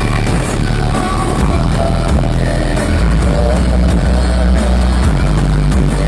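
Loud live band music played through a concert PA, with heavy bass.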